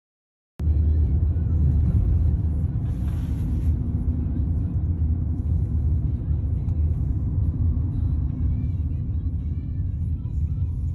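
Steady low rumble of a moving vehicle, starting abruptly about half a second in.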